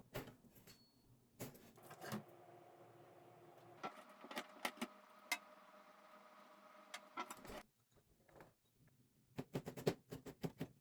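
Kitchen handling sounds: a scattered series of sharp clicks and taps of utensils and containers, with a faint steady hum from about four seconds in that stops before the last, loudest cluster of taps.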